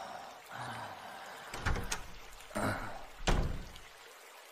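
A few short knocks and dull thuds, about four in the middle of the clip, over faint breathy noise at the start.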